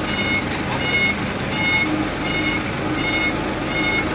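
A vehicle backup alarm beeps in a steady series, about one beep every two-thirds of a second. Underneath it the engine of a small pneumatic-tyre road roller runs as the roller moves up onto a flatbed truck.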